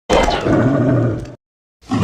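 Giant-monster roar sound effect built from a big cat's roar, lasting just over a second and cutting off abruptly. A second roar starts near the end.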